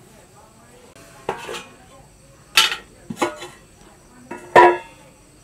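Steel pot lid and metal cookware clanking together as pots are handled: four sharp clatters spread across a few seconds, the loudest near the end ringing briefly.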